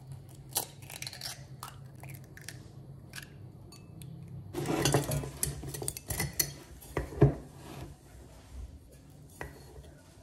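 Kitchen clatter of dishes, utensils and a glass coffee jar being handled on a granite countertop: scattered clinks and knocks, with a busier stretch about halfway through. A low steady hum runs underneath.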